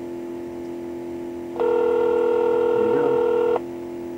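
Telephone ringback tone heard over a cell phone as it calls a pay phone: one steady two-second ring in the middle, over a constant low hum.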